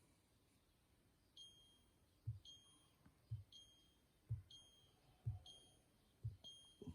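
Faint electronic beeping, one short high beep about once a second, each paired with a soft low thump that is the louder part of the pattern.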